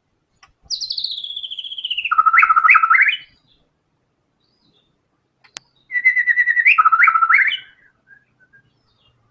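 White-rumped shama singing two loud phrases, each a rapid rattling trill that slides down in pitch and ends in a lower trill broken by quick upward sweeps. A single sharp click falls between the two phrases.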